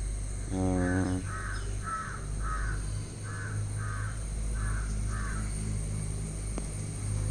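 A crow cawing about eight times in a row, roughly two caws a second, then stopping.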